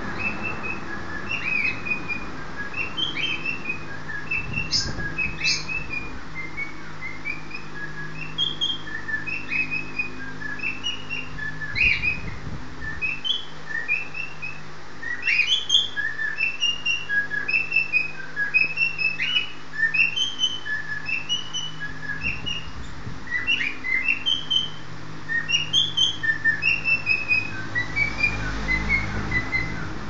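Cockatiel courtship whistling: quick runs of short chirped and whistled notes as the male entices his mate into the nest box. The calls grow busier about halfway through, over a low steady hum.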